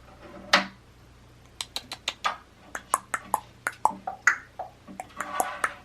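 Talking pet bird making a quick run of sharp beak clicks and short chirps, with a brief chattering call at the start and another near the end.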